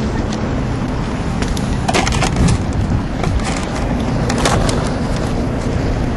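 Steady rumbling noise of wind on the microphone, with scattered sharp clicks and knocks as the camera is handled and swung about.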